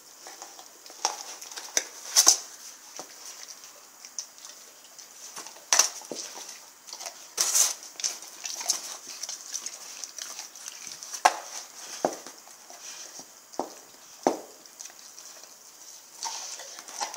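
Rottweiler gnawing and tearing at a raw lamb shank: irregular wet chewing and crunching clicks, with a few louder sharp cracks about 2, 6 and 7.5 seconds in.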